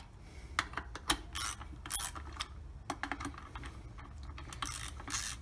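Hand ratchet clicking in short, irregular bursts as the primary clutch cover bolts are snugged down a little at a time, drawing the cover straight down onto the shaft without binding.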